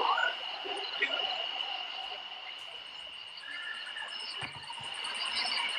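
Insects trilling steadily, joined about two and a half seconds in by a second, higher, fast pulsing chirp, with a few scattered short calls.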